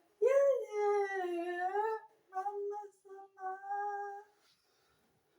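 Dog howling: one long howl that rises and then slides down, followed by a few short broken howls and a final held note that stops about four seconds in.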